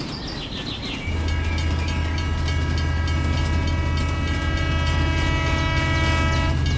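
A long, steady horn-like tone over a deep hum, starting about a second in, held for nearly six seconds and then cutting off.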